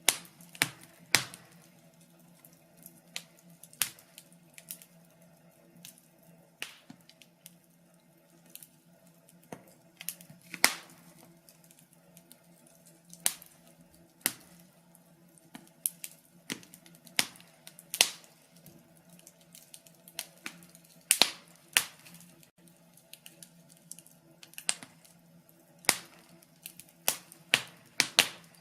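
Wood fire crackling in a fireplace, with irregular sharp pops about one or two a second over a faint steady hum.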